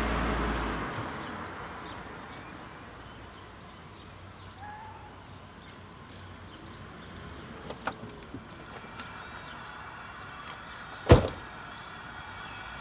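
A car passes and fades away at the start, then quiet street ambience with a few small clicks. About eleven seconds in, a car door is slammed shut once, sharply and loudly.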